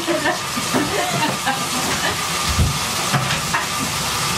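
Water running steadily in a bathtub for a dog's bath, a constant hiss, with a couple of low bumps about two and a half seconds in.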